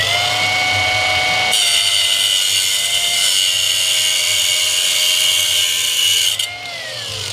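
Power grinder at full speed, its whine steady, cutting into the metal casing of an electric door strike with a harsh grinding hiss from about a second and a half in to about six and a half seconds. The tool then comes off the metal and its whine falls as it winds down near the end.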